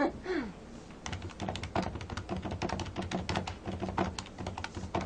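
Keys of a large desktop calculator being pressed fast, a rapid run of plastic key clicks, several a second, starting about a second in.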